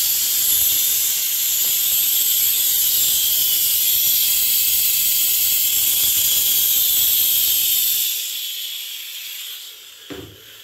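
H2O Mop X5 handheld steam cleaner jetting steam on its second power setting: a loud, steady, high-pitched hiss that dies away about two seconds before the end. A light knock follows near the end.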